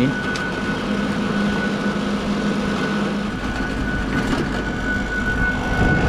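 Steady machinery running, with a constant high-pitched whine over a low hum. The low hum changes character about halfway through. A few light clicks of handling are heard.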